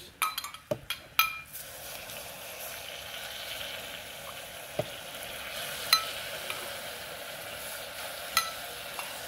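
Hot caramelized sugar-and-vinegar syrup sizzling steadily in a stainless steel saucepan as lemon and lime juice is poured into it, with a few light clicks near the start and a couple more later.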